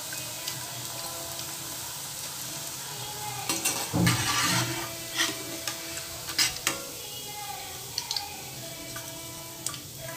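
Moong dal pakodas deep-frying in hot oil in a kadai, a steady sizzle, while a steel slotted spoon scoops them out, clinking against the pan several times.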